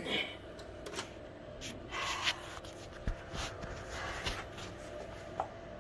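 Rustling and scattered light clicks and taps, over a faint steady hum.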